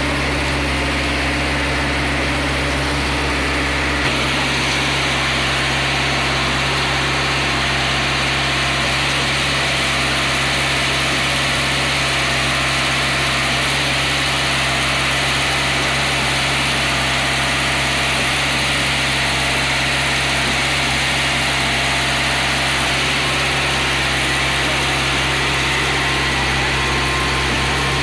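The engine of a reversible concrete mixer with pump running steadily, with a small shift in its tone about four seconds in.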